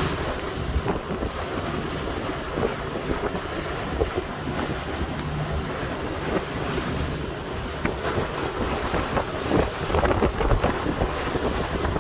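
Wind buffeting the microphone on a sportfishing boat at sea, over a steady low rumble and the wash of the water, with scattered small knocks.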